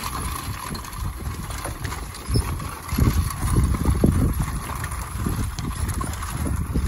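A pair of shire horses pulling a 1940s Thomas seed drill over ploughed ground: a low rumble with irregular thuds and rattles from hooves and the drill's iron wheels, getting louder about three seconds in.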